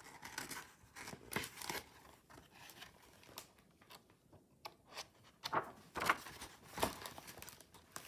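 Paper pages of a picture book being turned and handled, with irregular rustling and crinkling, loudest a little past the middle.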